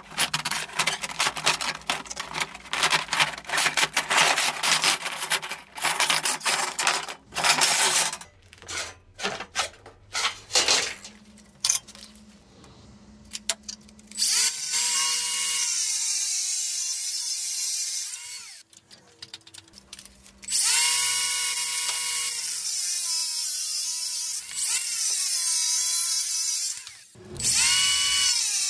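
Handheld power tool working metal: a rough, crackling grinding noise for the first several seconds, then scattered short bursts. From about halfway the tool runs with a steady high whine that sags in pitch as it bites, stops, and is started again twice.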